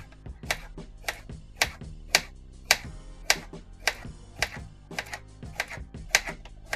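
Kitchen knife slicing zucchini into rounds on a plastic cutting board: a crisp chop about twice a second, a dozen strokes in all, over soft background music.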